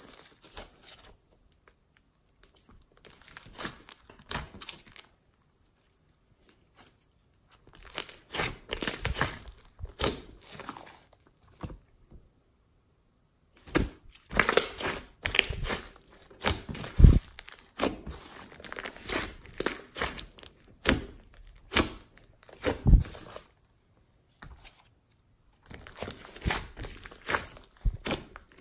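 Hands kneading and stretching slime, giving irregular bouts of crackling and crunching with the odd sharp thud, broken by several short silences.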